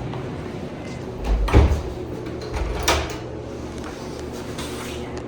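A door shutting with a heavy thump about a second and a half in, then a sharp click about a second later, over a steady low hum.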